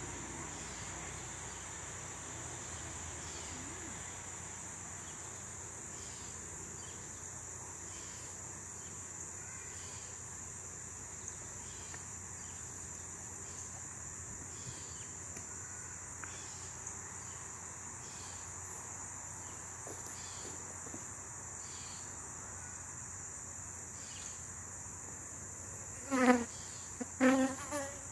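A steady high-pitched insect chorus, with honey bees buzzing around an opened, aggressive colony beneath it. Two short, loud sounds come near the end.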